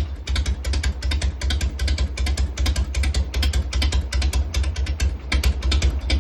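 Harley-Davidson Shovelhead V-twin engine idling steadily, a low rumble with a quick, even beat of exhaust pulses, running to heat-cycle after a top-end rebuild.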